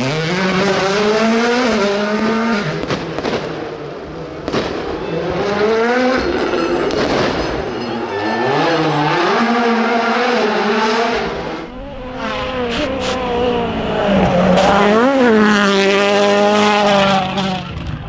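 World Rally Cars' turbocharged 1.6-litre four-cylinder engines revving hard, the pitch climbing and dropping repeatedly through gear changes, with a few sharp pops.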